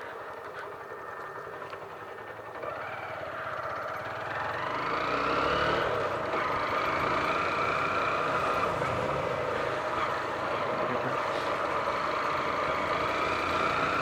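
A 150 cc motorcycle engine running under the rider. Its pitch rises over a few seconds as the bike speeds up, then holds steady at cruising speed, with wind noise on the helmet microphone.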